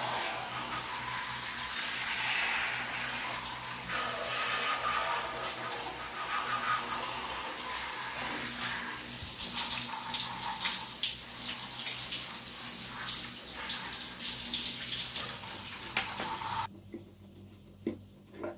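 Water running hard from a tap and splashing, with small knocks and clatters of things being handled under it. The flow is cut off abruptly near the end.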